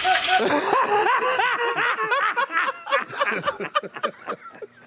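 Laughter: a rapid run of short rising-and-falling notes that thins out and fades toward the end.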